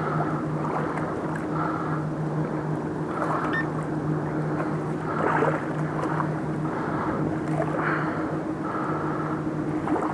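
A boat engine's steady low drone on the river, with uneven water noise swelling briefly every second or two.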